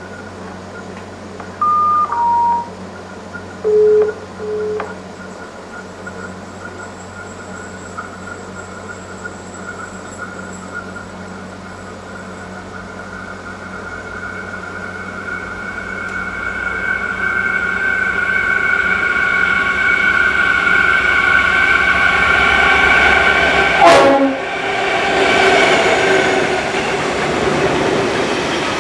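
Diesel locomotive running light (no train behind it) approaching and passing at speed: its engine and a steady whine grow louder for about ten seconds, drop sharply in pitch as it goes by, then leave a rumble of wheels on rail. Near the start, a few short horn-like notes sound: two descending notes, then two lower ones.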